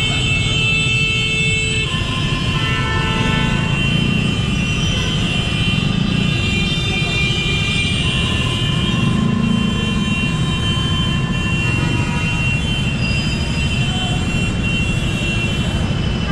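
Gridlocked traffic heard from a motor scooter: a steady low engine and traffic rumble, with horns sounding on and off as drawn-out high tones.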